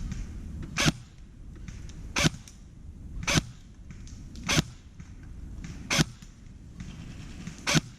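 Airsoft rifle firing single shots, six sharp cracks spaced a little over a second apart.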